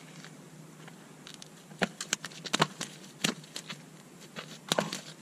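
A freshly landed amberjack flapping on stone paving: a run of sharp, irregular slaps, several close together in the middle and a loud pair near the end.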